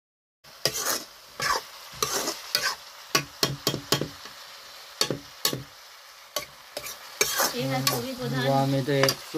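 A steel spoon stirs and scrapes vegetables frying in a steel kadai. There is a steady sizzle and repeated clanks of the spoon against the pan, starting about half a second in. A low hum joins near the end.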